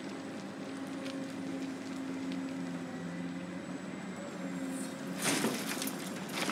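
Large Caterpillar hydraulic excavator's diesel engine running with a steady hum. About five seconds in, a louder rush of noise comes in as the bucket dumps earth into a dump truck.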